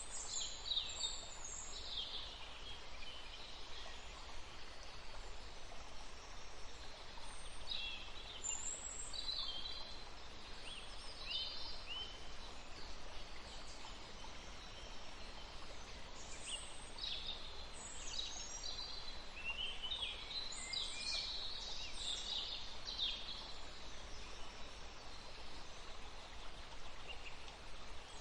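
Forest ambience: songbirds chirping and trilling in short, high calls over a steady hiss of a small stream flowing.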